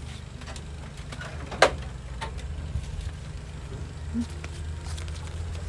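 Steady low outdoor rumble, with one sharp click about a second and a half in.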